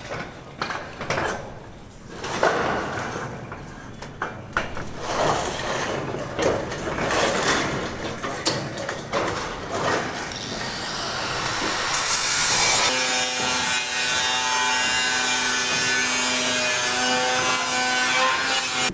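Irregular rasping strokes, like sawing or scraping. About two-thirds of the way in, a power tool spins up and runs at a steady pitch.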